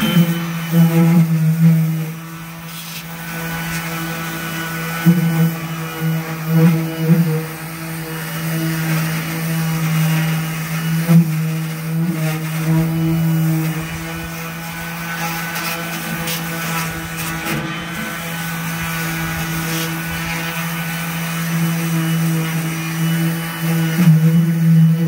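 Cordless random orbital sander running steadily, its pad sanding rust off the metal base of an old wheel balancer: a constant motor hum with a grinding hiss, surging louder briefly several times.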